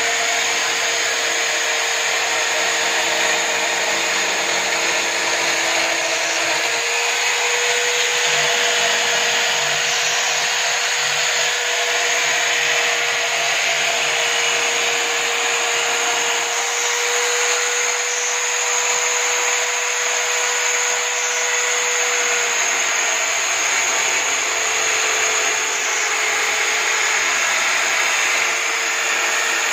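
Electric drill clamped upright in a drill stand as a homemade sanding machine, running steadily with a sanding drum: a continuous motor whine under a hiss. The pitch dips slightly now and then as wooden board pieces are pressed against the drum.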